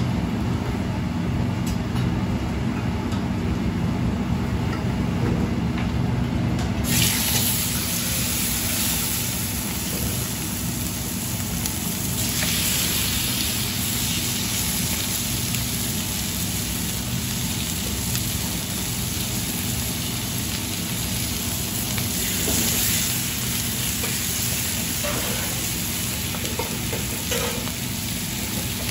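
Raw chicken thighs laid into hot oil in a black steel frying pan, sizzling. The sizzle starts suddenly about seven seconds in and swells again as more pieces go in, over a steady low hum.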